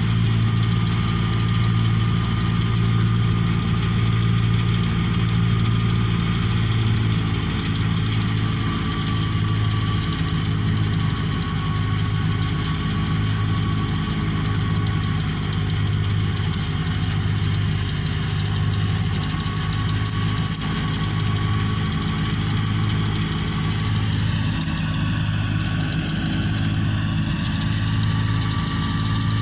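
Farm machinery engine running steadily at a constant speed, its low hum throbbing slowly and evenly about once every second or so.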